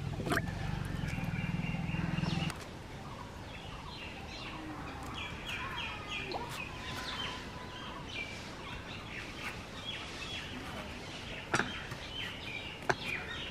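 Small birds chirping in quick repeated series. A low steady hum stops suddenly about two and a half seconds in, and two sharp clicks come near the end.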